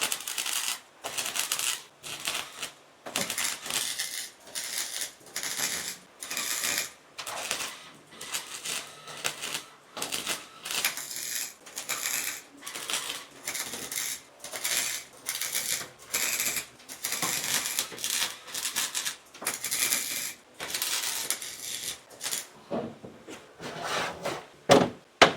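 Welding arc in short repeated bursts with brief pauses between, roughly once a second: stitch or tack welding a patch of fresh sheet metal into a rusted car body panel.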